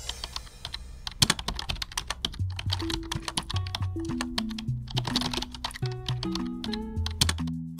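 Keyboard-typing sound effect, a rapid run of clicks, over background music whose low melody of held notes steps from note to note.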